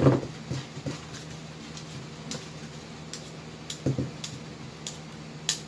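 Hand-held vegetable peeler scraping the skin off a raw potato over a steel pot: scattered short scrapes and clicks, with a knock at the start and another about four seconds in. A steady low hum runs underneath.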